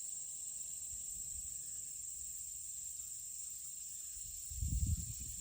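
Steady high-pitched chorus of late-summer insects, with a faint even pulsing in the buzz. A brief low rumble comes about four and a half seconds in.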